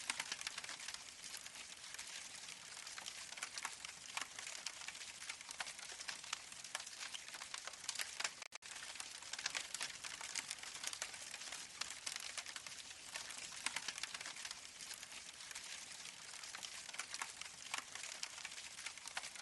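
Recorded campfire crackling played by an artificial fireplace's sound module through its small speaker: a steady stream of small crackles and pops, with a brief break about eight and a half seconds in.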